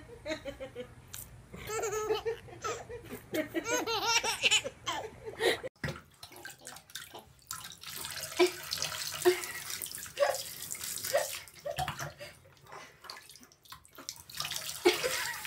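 A baby laughing and squealing with rising and falling pitch for the first five seconds or so; then, after an abrupt cut, a steady hiss of running bath water around a baby in a bath seat, with a few short baby coos.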